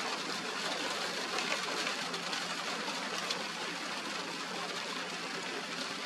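Steady hiss of heavy rain falling, even and unbroken.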